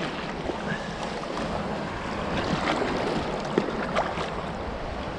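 Shallow surf washing at the shoreline with wind rushing on the microphone, broken by a few faint, brief splashes from a hooked bluefish thrashing in the shallows.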